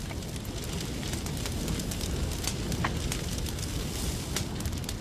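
A wooden house burning: a steady low rumble of flames with scattered sharp crackles and pops from the burning timber.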